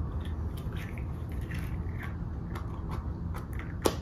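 Plastic Easter eggs being handled and shuffled in a pile, with light clicks and crinkles, and one sharp click near the end as an egg is snapped open.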